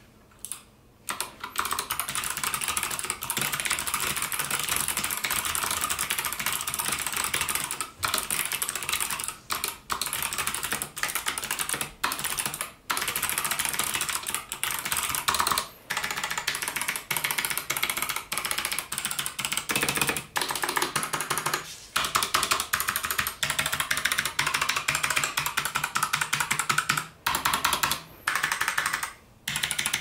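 Fast, continuous typing on a Micronics Manic K735 mechanical keyboard with Kailh Box White clicky switches: a dense stream of sharp key clicks, starting about a second in and broken by short pauses every second or two.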